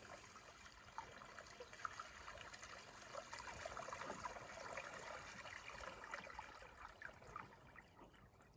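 Faint water lapping and trickling, with many small irregular splashes.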